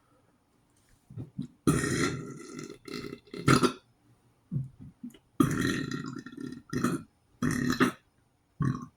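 A person burping loudly over and over: a long burp about two seconds in, a short one soon after, another long one about five and a half seconds in, then two shorter ones near the end.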